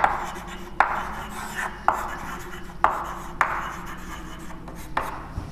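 Chalk writing on a chalkboard: several sharp taps as the chalk strikes the board, each followed by a short scratch as a letter is drawn.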